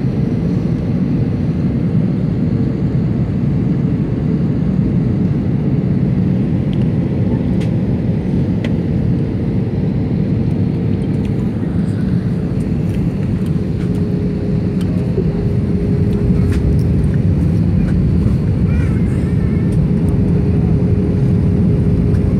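Steady drone of an Air Arabia airliner's jet engines and airflow heard inside the cabin on approach to landing, deep and even, with a faint steady hum above it that drops slightly in pitch about halfway through.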